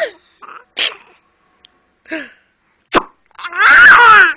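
Silly vocal sound effects made to amuse a child: a few short, sudden noises, then a loud, wavering one lasting nearly a second near the end.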